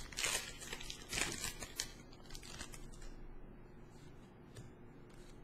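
Foil Pokémon booster pack wrapper crinkling and tearing as it is opened, three crackly bursts in the first two seconds, then softer rustling and light ticks of the trading cards being handled.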